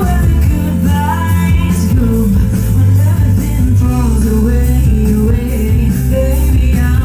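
Live band performing a rock song: a singer's voice over guitar and a steady low bass, loud.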